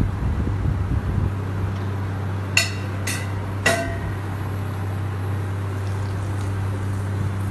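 Three sharp, ringing clinks about half a second apart, a utensil knocking against cookware while butter goes into a frying pan, over a steady low hum.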